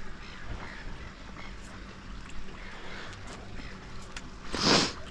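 Steady low rumble of water and marina background noise, broken near the end by one short, loud rush of noise.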